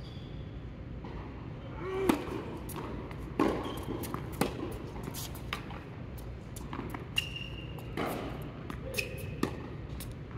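Tennis ball being struck and bouncing on an indoor court, sharp knocks at irregular intervals, with a couple of short high squeaks among them, over a steady low hum.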